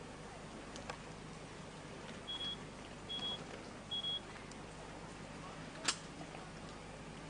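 Three short high beeps on one pitch, evenly spaced a little under a second apart, over steady background noise, with a sharp click about six seconds in.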